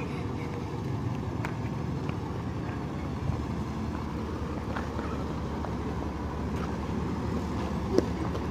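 A steady low engine rumble running without change, with a single sharp click about eight seconds in.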